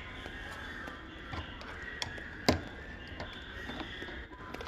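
Hose clamp pliers working the wire spring clamp on an LG washer's door boot: faint handling knocks, then one sharp click about two and a half seconds in.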